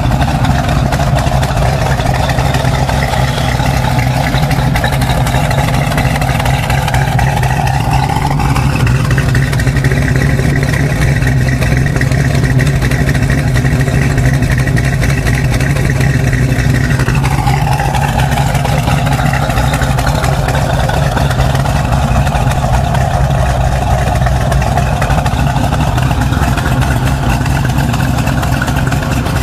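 Plymouth 'Cuda's V8 engine idling steadily through its exhaust.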